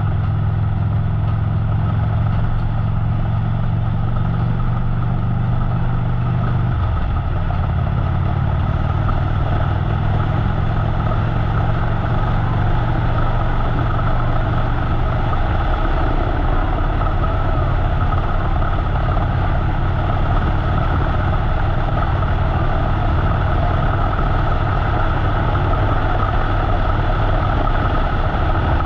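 Harley-Davidson motorcycle's V-twin engine running steadily under way, with wind and road rush on a GoPro microphone. The engine note shifts about seven seconds in and again around the middle.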